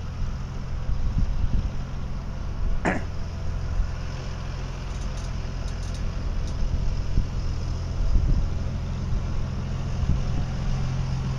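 Death Valley Railroad car No. 5, a self-propelled railcar, rolling slowly along the track with its engine running in a steady low hum. A brief high squeak comes about three seconds in.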